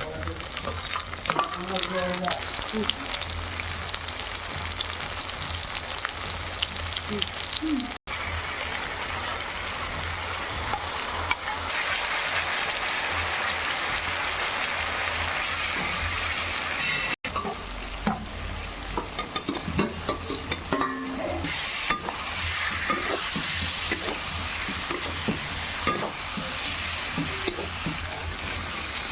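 Jackfruit and potato curry sizzling as it fries in hot oil in a pan, with a spatula scraping and clicking against the pan as it is stirred. The sizzle cuts out abruptly twice.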